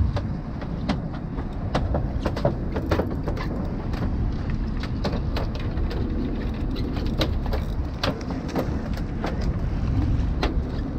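Steady low rumble of a fishing boat's engine with wind on the microphone, broken by many irregular sharp clicks and knocks.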